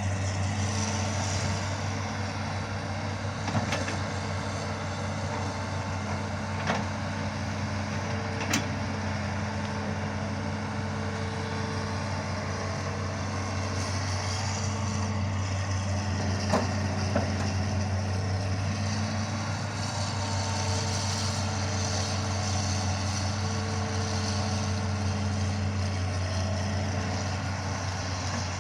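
Hitachi Zaxis 210 hydraulic excavator's diesel engine running steadily with a constant low hum, with a few sharp knocks or cracks scattered through it.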